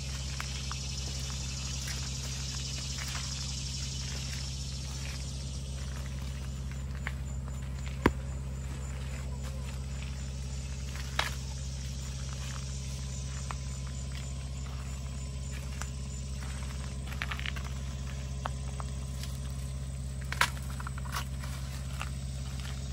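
Footsteps and rustling among tall corn stalks, with a few sharp snaps as ears of corn are broken off the stalks. The loudest snaps come about eight, eleven and twenty seconds in. A steady low hum runs underneath.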